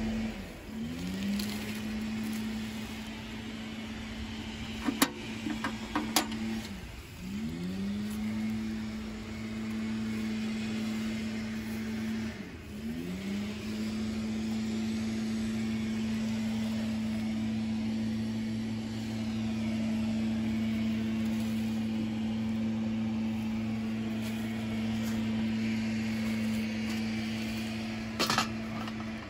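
A motor or engine runs with a steady hum, sagging briefly in pitch and recovering three times. A few sharp clicks come about five and six seconds in and again near the end.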